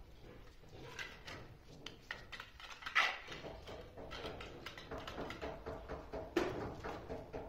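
Pointed steel trowel scraping, slapping and smoothing wet cement mortar, in irregular short strokes with a sharper knock about three seconds in and again past six seconds.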